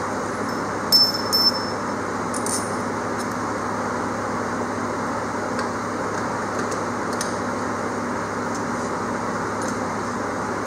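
Light metallic clinks of an aluminum jack plate being handled against a jon boat's transom, with one sharper clink about a second in that rings briefly and a few fainter taps later, over a steady background rush.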